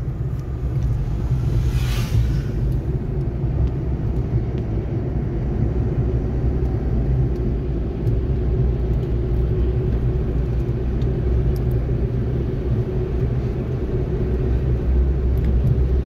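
Steady engine and road rumble of a car driving, heard inside the cabin, with a short rush of noise about two seconds in.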